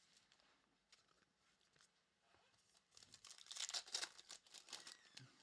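Trading-card pack wrapper being torn open and crinkled: a stretch of crackling from about three seconds in, lasting about two seconds, after faint handling ticks.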